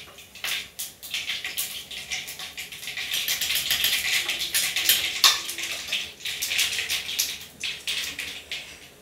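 Mustard seeds and urad dal spluttering in hot coconut oil in a kadai: a dense crackle of rapid pops that thickens about three seconds in and thins toward the end. This is the tempering stage, the popping a sign that the oil is hot.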